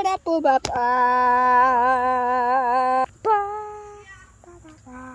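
A child singing, holding one long, slightly wavering note for about two seconds, then shorter sung notes and a softer held note near the end.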